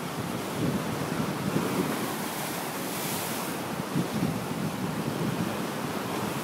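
Ocean surf washing on the shore, with wind buffeting the microphone; a wave washes in more loudly about three seconds in.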